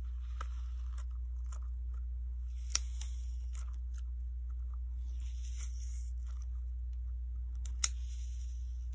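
Jelly slime with melamine-sponge fruit pieces being squeezed and kneaded by hand. It makes soft crackly, crunchy squishing in several bouts, with two sharp clicks, about three seconds in and near the end. A steady low hum runs underneath.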